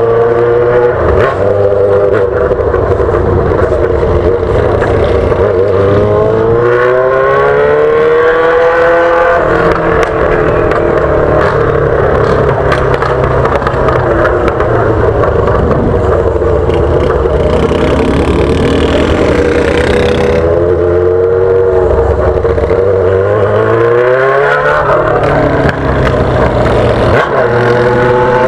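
Yamaha XJ6's inline-four engine through a straight-pipe 8-inch exhaust, running loud as the bike is ridden. Twice it revs up through a gear, once about a quarter of the way in and again near the end, with its pitch climbing steeply and then dropping off sharply.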